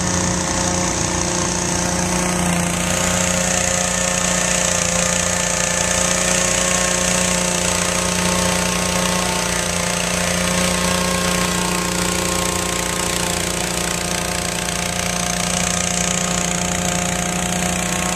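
Hot air balloon inflator fans, driven by small gasoline engines, running steadily as they blow cold air into the envelopes.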